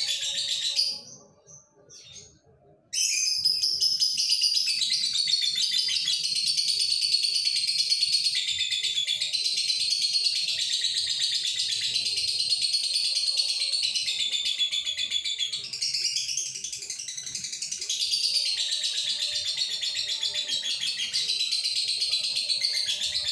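Male lovebird singing its long chattering song, a dense run of high, fast twittering that stops for about two seconds near the start and then goes on without a break. The long song is the sign of a male in breeding condition.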